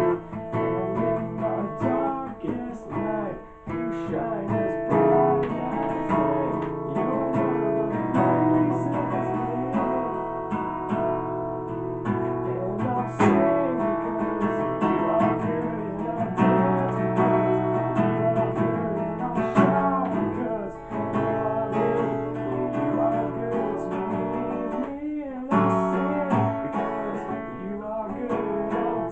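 Steel-string acoustic guitar strummed in continuous chords, with a man's voice singing along in places.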